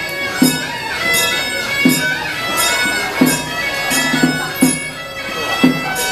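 Suona (Chinese double-reed shawm) playing a sustained, reedy melody over irregular low drum strokes: traditional Taiwanese temple ritual music.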